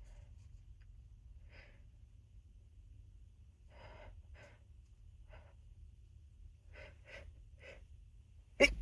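A person taking a series of short, catching gasps, then a sudden sharp stifled sneeze near the end.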